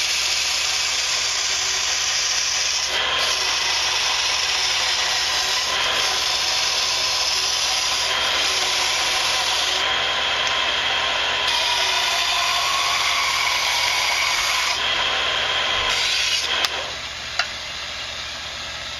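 Bench power tool running with the end of a wooden Native American flute pressed against it, cutting it down to shorten the flute and raise its pitch toward A. The tool's sound eases and picks up again every few seconds as the flute is shifted, then stops near the end.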